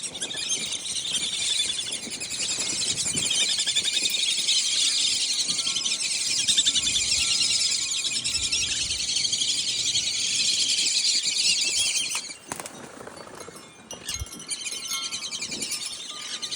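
A flock of small birds chirping and twittering densely and without pause. The chatter drops away for a couple of seconds about twelve seconds in, then picks up again.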